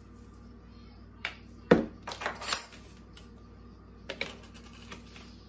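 Kitchen clatter from a measuring spoon and spice containers handled on a counter: a sharp knock about two seconds in, then a brief rattle, and a few small clicks near the end.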